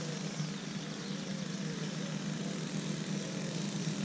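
An engine running steadily: an even low drone with a hiss over it, unchanging throughout.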